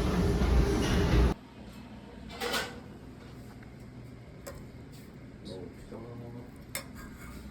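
Loud music and voices that cut off abruptly a little over a second in. After that, a quiet room with a few light clinks of dishes and cutlery and faint murmured voices.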